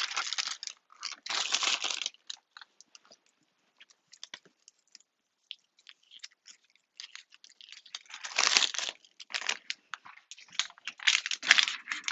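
Plastic packaging and wrappers crinkling and crunching as they are gathered up for the trash, in a burst at the start and again through the second half, with a near-quiet stretch between.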